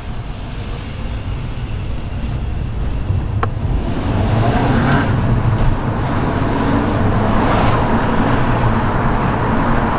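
VW Golf Mk6's turbocharged 1.4 TSI engine and road noise while driving, slowly getting louder. There is a sharp click about three and a half seconds in.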